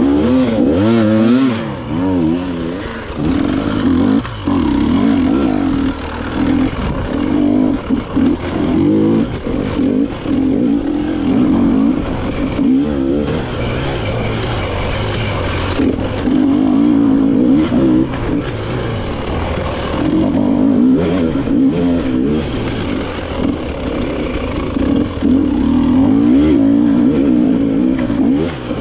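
Dirt bike engine revving hard, its pitch rising and falling constantly with throttle and gear changes, with short drops every few seconds where the throttle is shut off.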